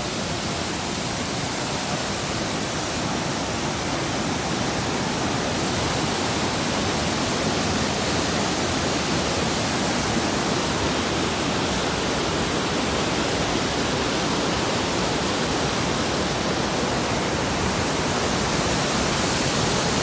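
Waterfall: water pouring down with force, a steady, even rush that holds without a break.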